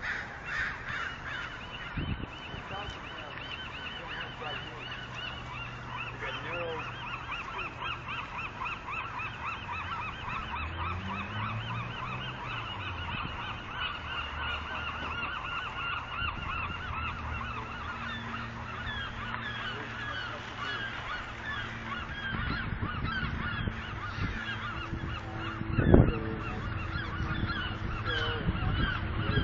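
Large flock of birds calling continuously, many short calls overlapping. A single sharp thump comes near the end.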